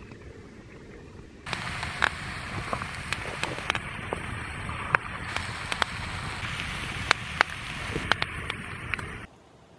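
Campfire crackling: a steady hiss with many sharp, irregular pops. It starts suddenly about a second and a half in and cuts off just before the end.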